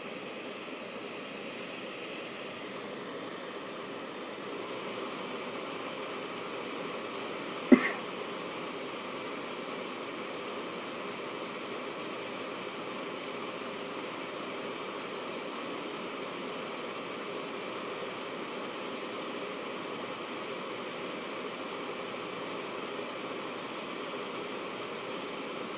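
iMac running with a steady whirring hiss and faint steady tones: the strange noise that its owner takes for a sign of a defect. A single sharp click about eight seconds in.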